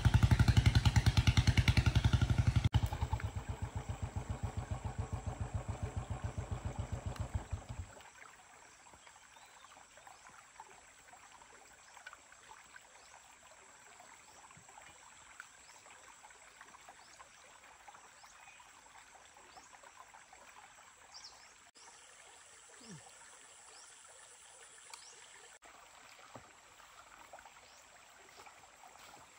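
An engine running with a fast, even pulse, loud at first and quieter from about three seconds in, stopping abruptly about eight seconds in. After that only faint outdoor background with scattered small clicks and a few faint high chirps.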